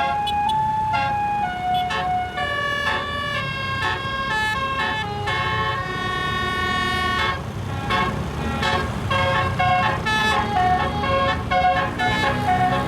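36-note basuri multi-tone air horn on a bus playing a telolet melody. Its chord-like notes step up and down every half second or so, with a steady low rumble underneath.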